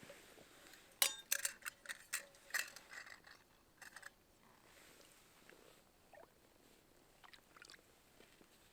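Camp gear being handled: a quick run of sharp clicks and rustles for about three seconds, then a few faint ticks.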